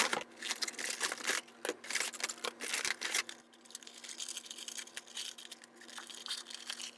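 Cardboard and plastic packaging rustling and crinkling as a toy blaster's box is handled, with scattered small clicks and taps. It is busiest in the first three seconds and then goes quieter and sparser.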